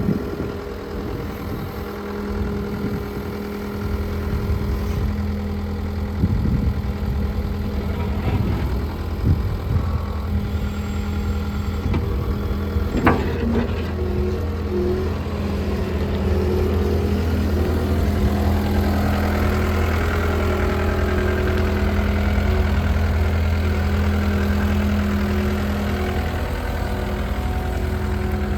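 John Deere 320G skid steer's four-cylinder diesel engine running steadily at idle, with a few knocks in the first half and a sharp click about halfway through.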